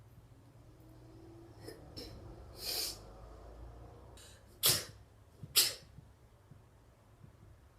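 A few soft breathy puffs, then two sharp sneezes in quick succession, a little under a second apart, past the middle.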